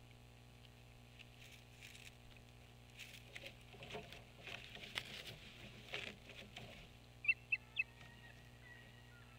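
An osprey shifting about on its stick nest, with a few seconds of twigs and nest material rustling and crackling. About two-thirds of the way through come three quick, sharp, high chirps from the osprey, then faint thin whistles.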